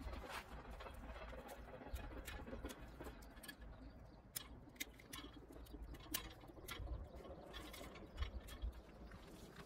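Small knife cutting meat and sinew away from the leg bone of a masked palm civet carcass: faint, irregular little clicks and wet ticks.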